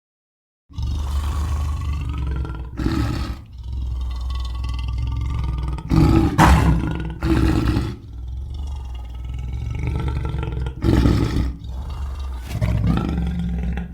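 Lion growling and roaring: a low, rumbling growl starting just under a second in, with several louder roars breaking through it.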